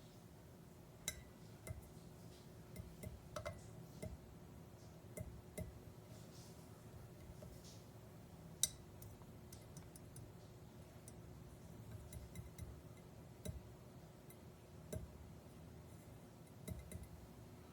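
Faint, scattered light clicks and ticks, about one every second or two, over a low steady hum.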